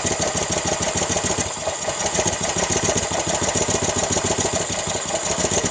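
Honda GCV190 single-cylinder engine on a pressure washer running steadily with a rapid, even firing beat. It is running lean, not getting enough fuel, which the owner takes for needing carburettor work.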